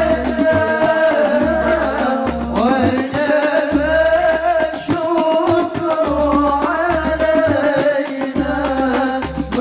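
Middle Eastern-style music: a sustained melody with gliding pitch over a low, repeating drum beat.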